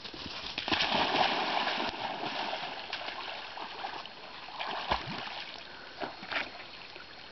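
An Airedale terrier and two Sealyham terriers splashing into lake water after a thrown stick. The splashing is loudest about a second in, then eases to the lighter, uneven sloshing of the dogs swimming, with a couple of short splashes later on.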